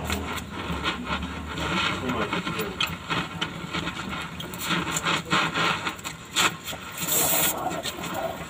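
Welding on a sheet-metal vehicle floor patch: an irregular crackling sizzle, with a louder hissy stretch near the end.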